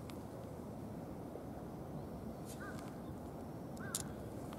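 Quiet outdoor ambience, a steady low rumble of background noise, with short calls from a distant crow, once about two and a half seconds in and again near the end.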